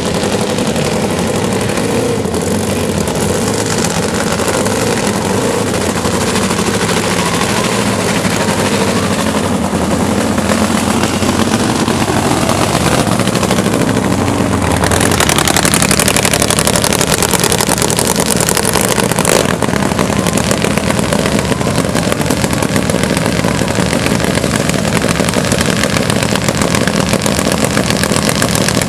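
Drag-racing motorcycle engine running loud and continuously. About halfway through the sound turns harsher and slightly louder as the engine is pushed harder.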